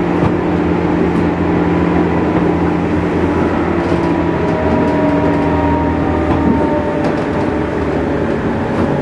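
Cabin sound in the motor car of a JNR-built 201 series electric train running on the rails: steady rumble of wheels and running gear under the whine of the traction motors and WN-drive gearing. Some of the whine tones fall slightly in pitch as the train slows.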